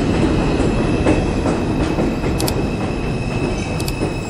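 New York City subway train pulling into a station: a steady rumble of the cars on the rails under a steady high whine, with two brief high squeaks, one near the middle and one near the end.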